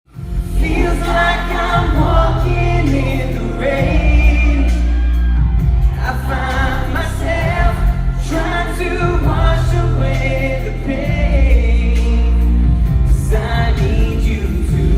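Live pop band music: sung vocals over band accompaniment with a sustained bass line.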